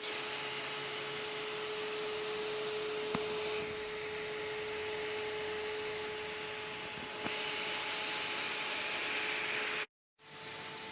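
Small 12-volt cooling fan running: a steady whir with a steady hum, with two faint ticks, cutting out briefly near the end.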